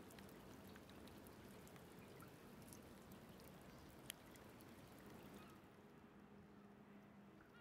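Faint water trickling and dripping among wet stones, with scattered small ticks and one sharp click about four seconds in, over a low steady hum.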